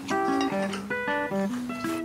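Background music: an acoustic guitar playing a quick melody of plucked notes.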